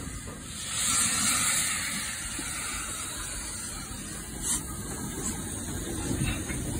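A steam-hiss sound from a model Midland 4F steam locomotive lasts about two seconds near the start. It is followed by the steady running noise of the model train rolling along the track, with a few sharp clicks as the wheels cross rail joints.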